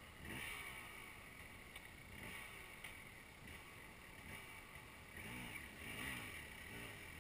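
Faint off-road motorcycle engine, with a few brief revs rising and falling in pitch about five to six seconds in.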